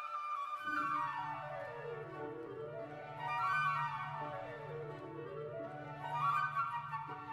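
Instrumental background music: quick runs of notes sweep down and back up the scale, repeating, over a held low note that comes in about half a second in.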